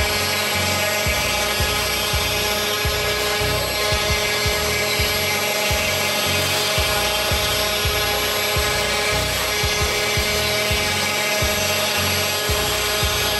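Spindle of a CNC 6040 router running steadily while a 3 mm end mill cuts pockets in a board, a whine made of several fixed tones over an uneven low rumble. A vacuum cleaner sucking up the chips runs alongside.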